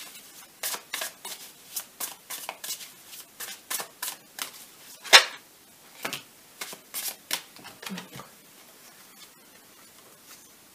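Tarot cards of the Tarot of Dreams deck being shuffled and handled: a quick run of card snaps and flicks, about three a second, with one sharper slap about five seconds in, dying away after about eight seconds.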